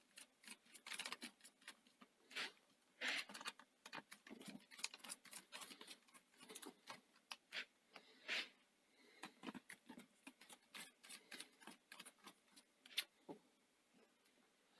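Faint, scattered clicks and light scraping of a small screwdriver backing out the screws that hold a Chromebook trackpad in place.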